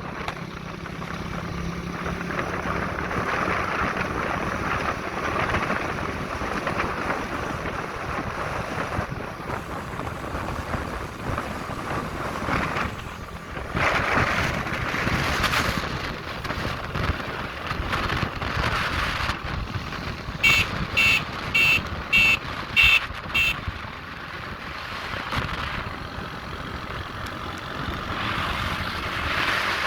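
Steady wind noise on the microphone with the rumble of a moving vehicle. About two-thirds of the way in, six short, high-pitched beeps sound in quick succession.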